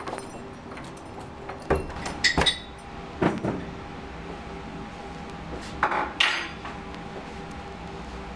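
Kitchenware being handled at a counter: a scattered series of knocks and clinks of dishes and utensils, some ringing briefly, over a faint steady hum.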